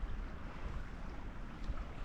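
Steady rushing hiss of a mountain creek's running water, with a low rumble underneath.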